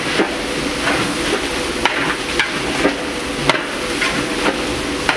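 Food sizzling in a large cooking pot while a metal utensil stirs and scrapes, knocking against the pot every half second to a second.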